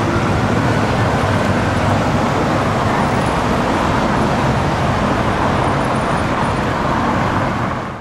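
Steady city street traffic noise from cars running at a busy intersection, fading out near the end.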